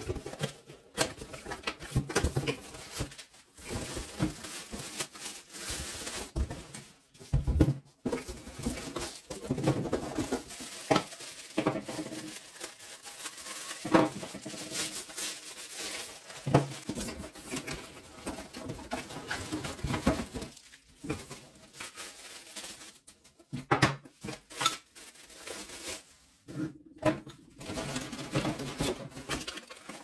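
Vacuum-cleaner packaging and plastic accessories being handled while unboxing: rustling with irregular knocks and clicks of hard plastic parts.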